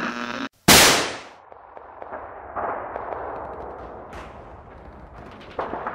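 End-card sound effect: a sudden loud bang about a second in that dies away within half a second, followed by a gritty crackling noise with scattered clicks that swells again near the end.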